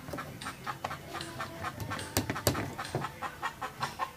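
Claw hammer tapping a headed nail into the corner joint of a sabina-wood picture-frame moulding, quick light taps about four a second to set the nail.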